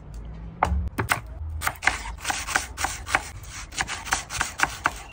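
Chef's knife slicing an onion on a wooden cutting board: quick knife strikes against the board, about three or four a second, starting just over half a second in.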